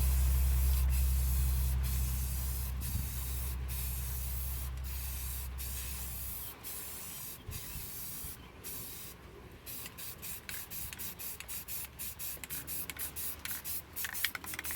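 Aerosol spray paint can hissing as a light coat goes onto a pile of screws. It comes in long sprays broken by brief pauses, then about ten seconds in turns to short, quick puffs.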